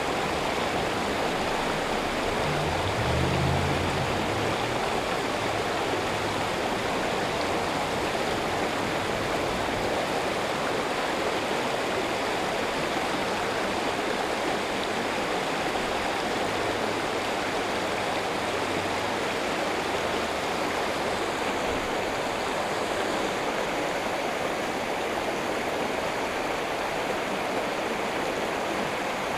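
Fast-flowing creek rushing over rocks and a small drop, a steady, even rush of water.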